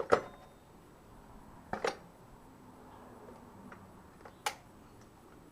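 Sharp metal clunks from a BMW F800GS rear wheel and axle being worked into place. There is a loud knock at the start, a double knock just under two seconds in, and one more at about four and a half seconds.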